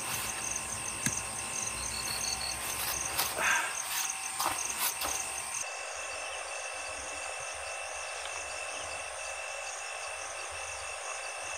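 Night insects, crickets among them, trilling steadily in a continuous chorus, with a few faint clicks and knocks in the first five seconds. About five and a half seconds in, the low background rumble cuts off abruptly and only the insect trill goes on.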